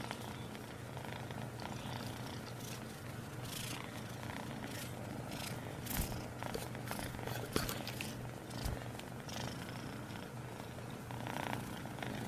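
Persian kitten purring steadily close to the microphone, with a few soft knocks and rustles of fur and handling.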